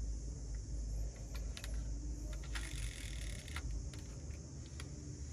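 A die-cast toy Cybertruck being picked up and handled: scattered small clicks and rattles of its metal body and plastic parts against the fingers, with a quick run of clicks about halfway through.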